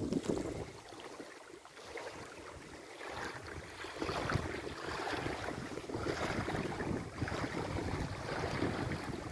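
Strong, gusty wind buffeting the microphone, easing off for a couple of seconds and then picking up again.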